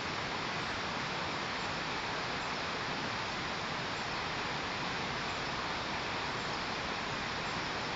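Steady, even hiss with no calls or other distinct sounds.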